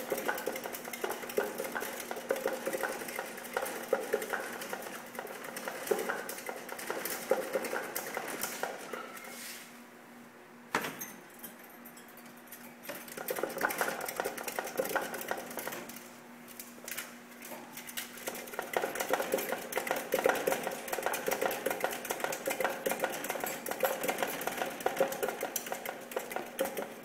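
Black-tailed prairie dog running in a plastic exercise wheel: a fast, continuous plastic rattle and clatter of the spinning wheel and scrabbling claws. It comes in long spells, with a pause of a few seconds near the middle.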